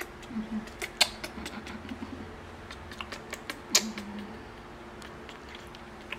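Irregular wet clicks and smacks from a baby macaque sucking on its own fingers, two of them sharp and loud, about a second in and just before four seconds, with softer clicks between.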